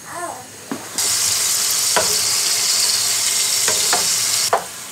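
Pieces of ribeye steak sizzling loudly in hot olive oil in a frying pan. The sizzle starts abruptly about a second in and drops off sharply near the end, and a plastic spatula clicks against the pan a few times as the meat is stirred.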